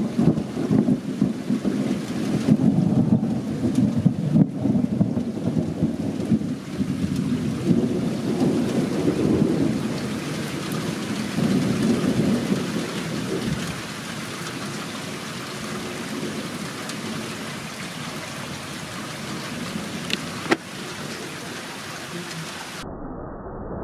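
Long rolling thunder rumble that surges and fades, dying down after about fourteen seconds to a steady background of rain. A single sharp click comes near the end.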